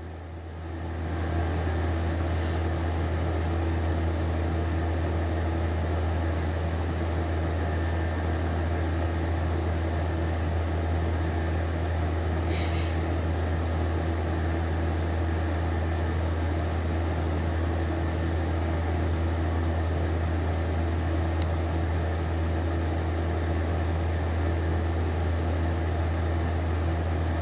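Nail-curing lamp running with a steady low hum. A soft brushing noise comes once about halfway through.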